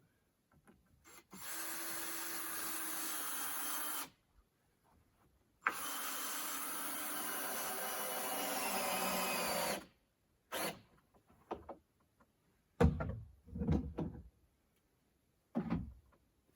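A handheld power tool runs in two steady bursts of about three and four seconds, followed by a few short knocks and thumps.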